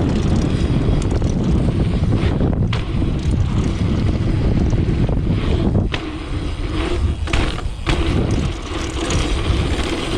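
Wind rushing over the microphone and tyre noise from a dirt jump bike speeding downhill on a street, with a few sharp knocks along the way.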